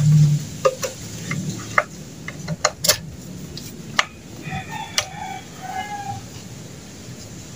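Sharp metallic clicks and taps of a screwdriver and small parts on a two-stroke brush cutter's carburetor as it is taken apart to clear a blockage. A few short pitched calls sound in the background a little past halfway.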